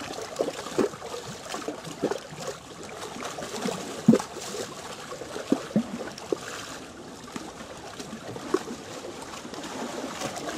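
Small choppy waves lapping and splashing against shoreline rocks, with irregular slaps and gurgles; the loudest slap comes about four seconds in.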